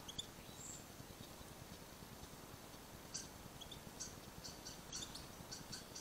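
Small garden birds giving short, faint, high chirps: a couple near the start, then a quick run of them through the second half.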